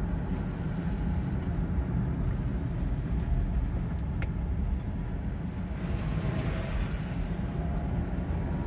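Car cabin noise while driving slowly: a steady low rumble of engine and road. Past the middle, the tyres hiss on the wet road for about a second and a half.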